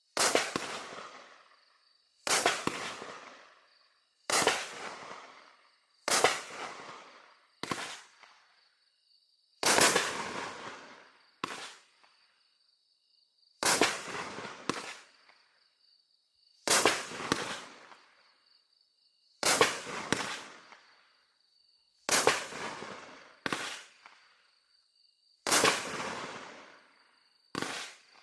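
A 15-shot, 200-gram consumer fireworks cake firing its shots one at a time, about one to three seconds apart. Each shot is a sharp bang with a tail that fades over about a second, and a few come as quick doubles.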